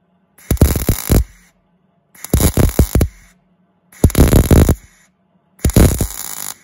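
MIG welder arc crackling in four short bursts of about a second each, stitch-welding a new steel patch plate. The welds are going in cleanly, as new metal is being joined to new metal.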